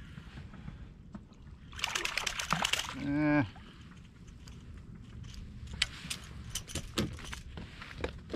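A small hooked speckled trout splashing at the water's surface for about a second as it is lifted, followed by a brief grunt, then scattered sharp clicks and knocks of the fish and tackle being handled in the kayak.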